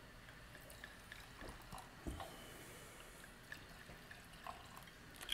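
Faint sound of red wine being poured from a bottle into a glass, with a few light ticks.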